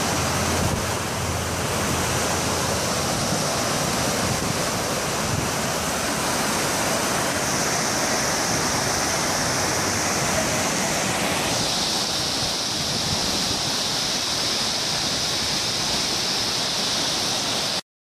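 Large multi-tiered waterfall and the rocky rapids below it, rushing steadily. The sound drops out briefly near the end.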